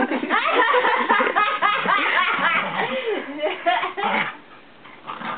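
Several people laughing together, dying down about four seconds in.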